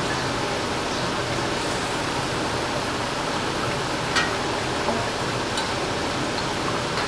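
Rui fish and sponge gourd curry simmering in a steel kadai on a gas burner: a steady bubbling hiss, with a sharp click about four seconds in and a fainter one a second later.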